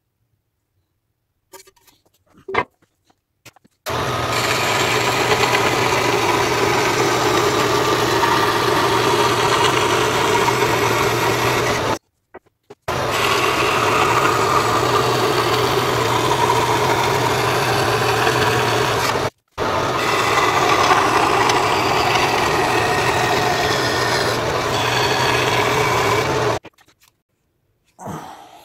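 Metal-cutting band saw running with its blade cutting through sheet metal: a steady whirring hum with hiss and rasp. It starts about four seconds in, breaks off abruptly twice, and stops near the end.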